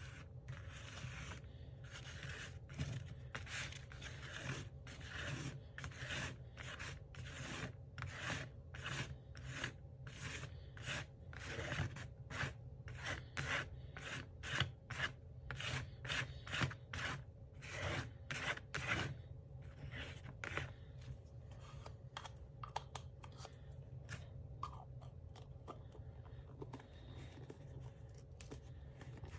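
Paintbrush bristles brushing paint back and forth over paper in short strokes, about two a second, then fewer and fainter strokes after about twenty seconds.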